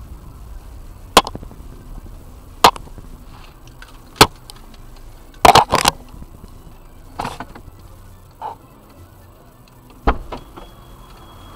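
A series of sharp knocks and clatters, a second or two apart with a cluster of them about halfway, from someone moving about inside a crashed car's cabin. A steady high tone starts near the end.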